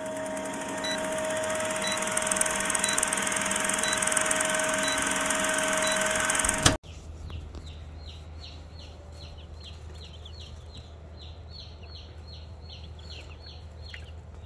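A film-countdown intro sound effect: a steady hiss with a held tone and a faint tick each second, cutting off abruptly about seven seconds in. Then baby chicks peep steadily in short, high, falling cheeps, about two a second, over a low hum.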